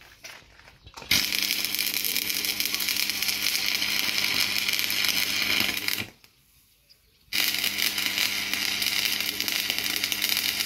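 Electric arc welder welding in two runs, about five seconds and three seconds long, each an even crackle over a low steady hum. The arc starts and stops abruptly, with a short pause between the runs.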